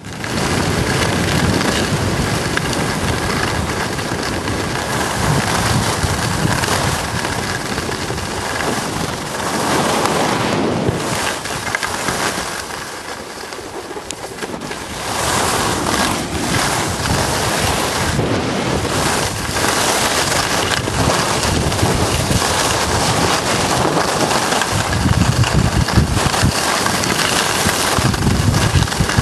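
Wind rushing over the microphone of a camera carried at speed down a ski run, with the hiss of sliding on snow. It dies down for a few seconds about halfway through, then picks up again.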